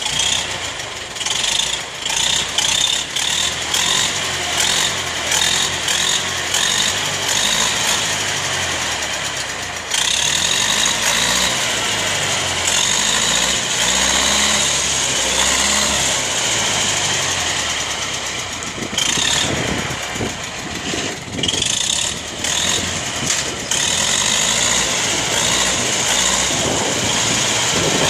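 Diesel engine of a Universal 650 tractor working in the woods, its revs surging and dropping in repeated pushes, steadier for a stretch in the middle.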